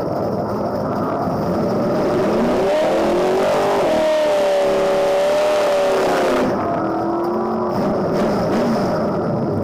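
Small-block Chevrolet V8 in a bracket-racing Camaro revving up, held at high revs with a loud rushing noise for a few seconds, then dropping back off.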